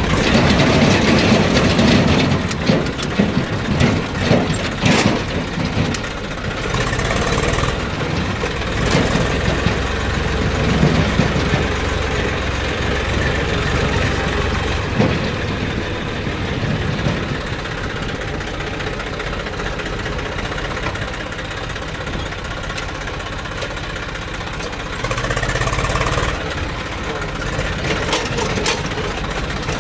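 An Eicher tractor's diesel engine runs steadily as the tractor is driven over rough dirt, heard from the driver's seat. Near the end it briefly gets louder.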